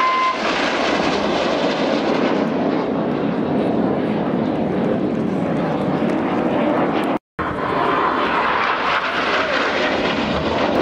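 Steady jet noise from Red Arrows BAE Hawk T1 jets, with Adour turbofan engines, flying past low in a display routine. The sound cuts out completely for a moment about seven seconds in.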